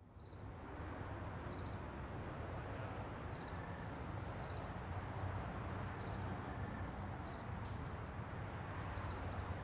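Light aircraft engine idling steadily, a low hum that fades in at the start, with a faint high chirp repeating about once a second.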